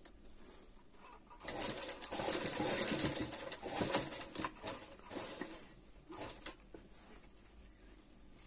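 Sewing machine stitching lace trim onto fabric: a run of rapid stitching starting about a second and a half in and lasting about three seconds, then a few short bursts before it stops.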